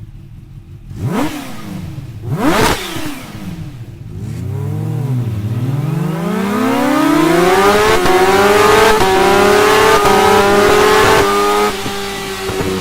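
Kawasaki Ninja H2's supercharged inline-four being revved: two quick throttle blips, then a long climb in revs that is held high for a few seconds before falling back to a lower idle near the end.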